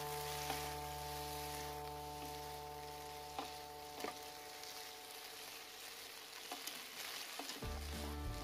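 Water spinach and garlic sizzling in a hot nonstick pan as they are tossed with a wooden spatula and chopsticks, with a few sharp clicks of the utensils against the pan.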